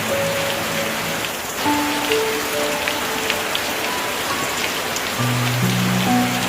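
Steady heavy rain with scattered sharp drop taps, under soft background music of slow held notes that grow fuller near the end.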